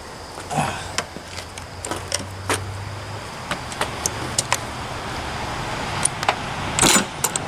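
Scattered clicks and light knocks of the hood being unlatched and handled on a 1997 Yamaha Superjet stand-up jet ski, with a louder clatter near the end, over a steady low hum.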